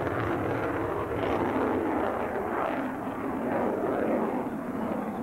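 Jet aircraft in flight: a steady rushing engine noise that swells and eases slightly.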